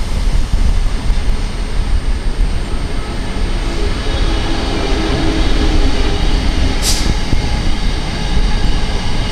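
InterCity 125 (HST) Mark 3 coaches rolling slowly past along the platform, a steady rumble of the train moving. Two short hisses of air come about seven seconds in and again at the end.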